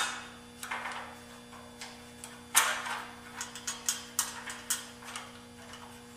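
Small metallic clicks and clinks of a metal leg bracket and its nuts and bolts being fitted onto an aluminium greenhouse leg by hand, a scattered run of light ticks with one louder clink about two and a half seconds in.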